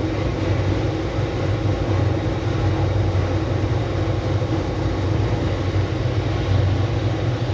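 Machinery running with a steady low hum under an even rushing noise.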